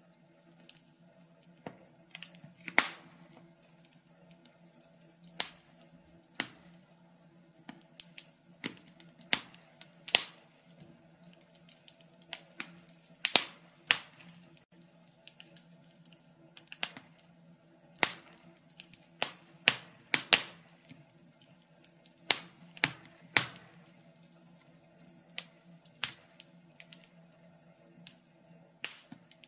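Logs burning in a fireplace, crackling: irregular sharp pops and snaps, some much louder than others, over a faint steady hum.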